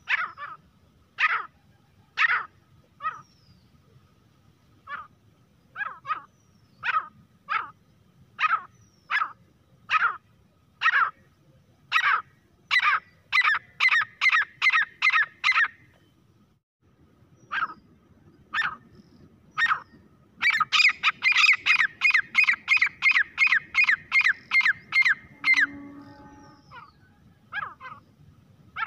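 Grey francolin calling: a series of short, sharp, high calls, at first about one a second, quickening to about three a second. After a brief pause comes a fast, loud run of about five calls a second, then a few spaced calls.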